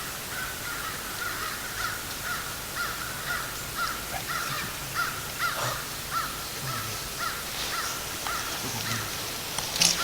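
A long series of short, harsh bird calls, about two a second, with a brief rustle right at the end.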